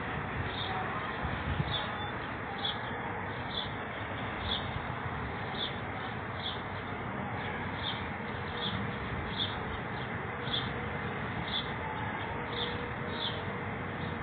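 Steady outdoor street noise with a short, high chirp repeating about once a second.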